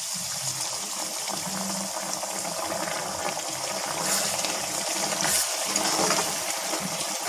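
Hot water poured into a hot iron kadai of oil-fried mutton, the pan hissing and bubbling steadily as the water hits it. In the second half a steel ladle stirs through the mix.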